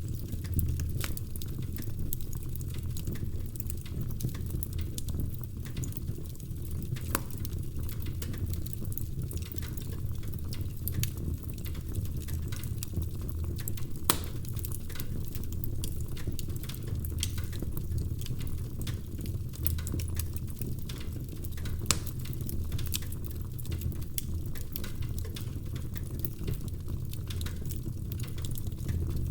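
Wood fire burning in a fireplace: logs crackling steadily over a low rumble of the flames, with a few louder single pops.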